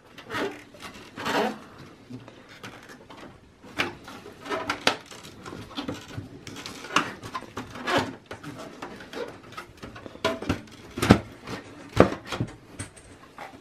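Plastic front bezel of a Dell XPS 8900 desktop tower being pried off the steel chassis by hand: a string of irregular clicks, snaps and knocks as its retaining clips are lifted, the two sharpest near the end as the bezel comes free.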